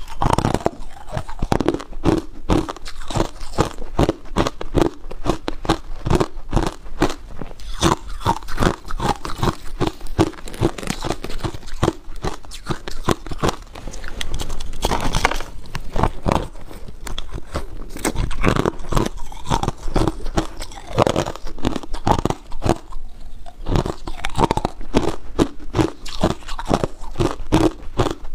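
Chunks of crushed ice being bitten and chewed close to a clip-on microphone: a continuous run of sharp crunches and cracks.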